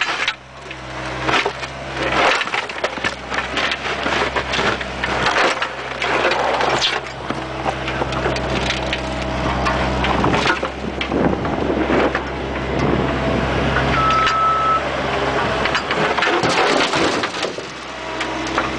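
Bobcat 430 mini excavator's diesel engine running steadily, close to a camera on the bucket. Over it comes a dense, irregular run of scraping, cracking and clattering as the bucket digs through and scoops material.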